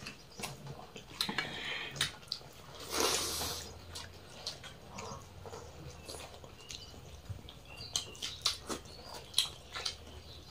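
People eating rice and curry with their hands from steel plates: many small wet clicks and smacks of fingers mixing food and mouths chewing, with a short louder rush of noise about three seconds in.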